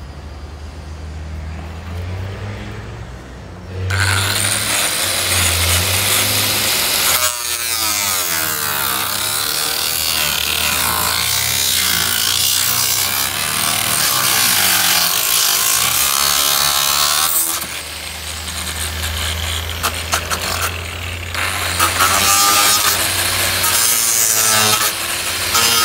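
A low hum, then about four seconds in a power sander starts working the yacht's hull, a loud steady rasping that shifts in tone as the sander moves over the surface, sanding it down ready for spray paint.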